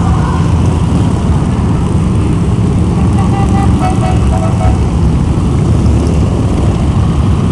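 A procession of cruiser and touring motorcycles riding past one after another, their engines running loud and steady at a low pitch.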